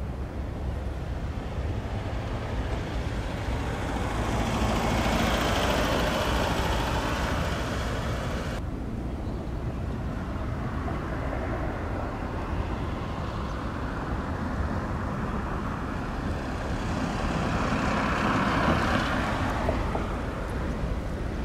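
Passing road traffic: two vehicles swell up and fade over a steady low rumble, the first cut off abruptly about eight and a half seconds in, the second near the end.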